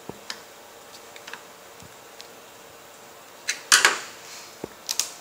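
Light metallic clicks and taps of hand tools on the saw's bar and chain as the chain tension is adjusted, with a louder metal clatter about three and a half seconds in and two sharp clicks near the end.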